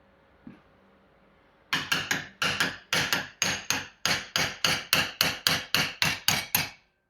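Hammer rapidly tapping a brass punch against the seal head of a Yamaha TZR 250 3XV rear shock absorber, about twenty sharp metallic strikes at roughly four a second, each ringing briefly. The blows are meant to drive the seized seal head down into the shock body while a clamp holds pressure on it.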